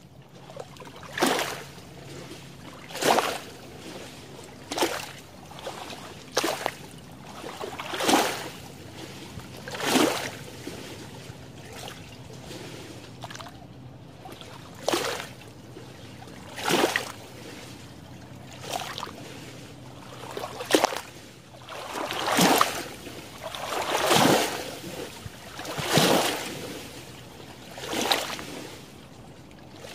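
Small lake waves lapping and splashing against a shallow, weedy shoreline, one splash about every two seconds, some louder than others, over a steady wash of moving water.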